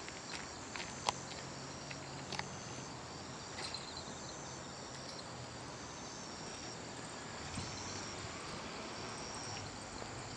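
Insects chirping outdoors: short, high calls repeated about once a second over a steady hiss, with a few sharp clicks scattered through.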